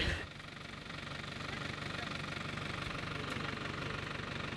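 An engine idling steadily: a low running hum with a fast, even pulse.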